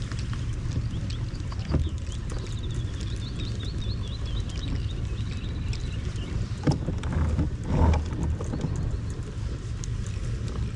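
Scattered hollow knocks and clunks on a plastic fishing kayak's hull, the loudest cluster about three-quarters of the way through, over a steady low wind rumble on the microphone. A bird calls with a quick run of short high notes for a few seconds from about two seconds in.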